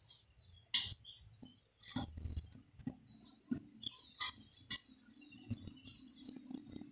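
Scattered light clinks and taps of a spoon and cloth coffee strainer against a metal jug as coffee is strained through cloth and the wet grounds are worked. A faint steady low hum comes in about halfway.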